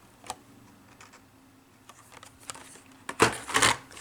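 Carded Hot Wheels packages being handled: scattered light plastic-and-cardboard clicks, then a louder burst of rustling and clatter about three seconds in as one card is swapped for the next.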